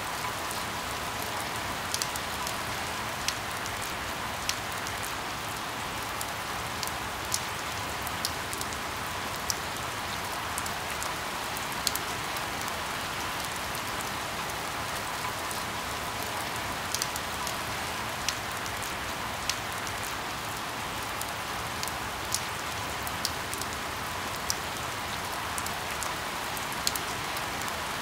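Steady rain falling, with individual drops ticking sharply and irregularly close by, about once a second.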